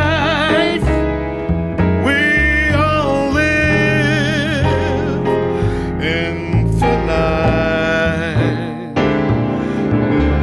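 A jazz ballad: a male voice sings long notes with vibrato over piano chords and a walking bass line.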